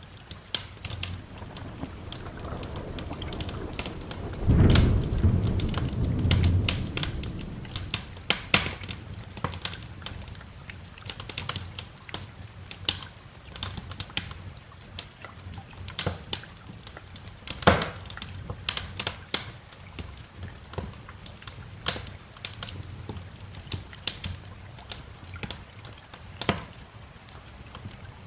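Wood fire crackling in a fireplace, with frequent irregular sharp pops and snaps. A low roll of thunder builds a couple of seconds in, is loudest around five to seven seconds, then fades, over a soft hiss of rain.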